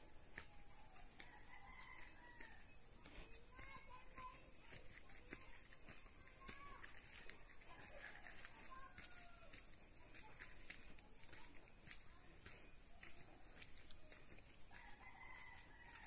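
Quiet rural outdoor ambience: a steady high-pitched insect drone with trains of rhythmic insect chirps, and birds calling. A rooster crows about a second in and again near the end.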